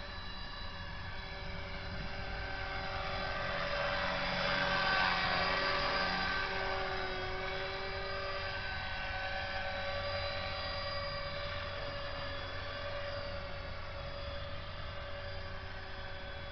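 Align T-Rex 450S electric RC helicopter in flight: a steady whine of its motor, gears and rotor, the pitch shifting slightly as it manoeuvres, loudest about five seconds in.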